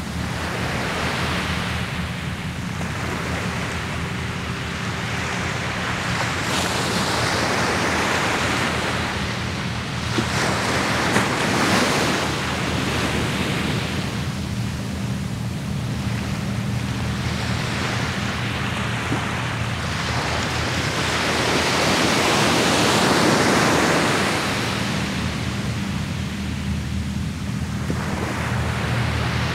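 Ocean surf breaking and washing up the beach in slow surges that swell and fade every several seconds, over a steady low rumble.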